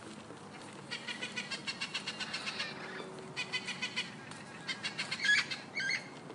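Rainbow lorikeet chattering in rapid runs of high clicky notes, then giving a couple of sharper, louder squawks near the end.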